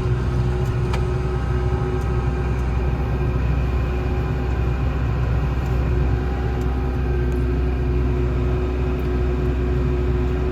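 Large diesel harvest machine engine running steadily at constant speed, a low, even hum.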